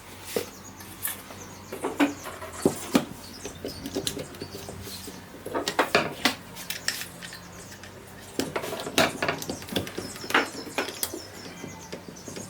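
Irregular clicks and light knocks of wood and hand tools being handled on a workbench, coming in clusters with short pauses between.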